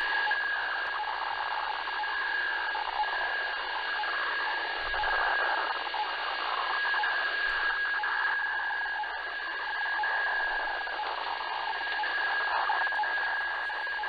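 HF radiofax transmission received on a shortwave SDR: a steady high tone with a dotted lower tone underneath, over radio hiss. This is the fax picture signal, which decodes to lines of Japanese or Korean text.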